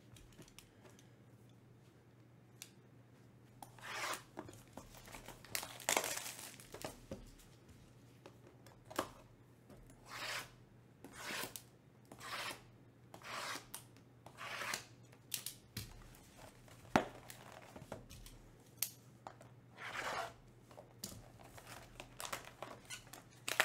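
A sealed, shrink-wrapped hobby box of trading cards being torn open by hand. Plastic wrap and cardboard give a series of short tearing and crinkling strokes, about one a second, starting about four seconds in.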